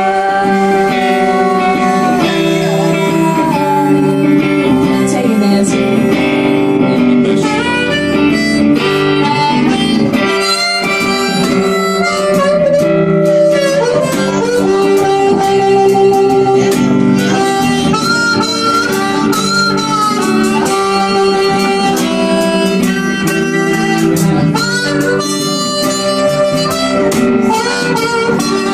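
Live blues-rock band playing an instrumental passage: a harmonica carries the lead line over electric guitar, bass guitar and drums.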